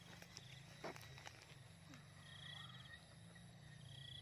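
Near silence with faint outdoor ambience: a calling animal in the grass gives two short, high trilled chirps over a low steady hum, with a single soft tap about a second in.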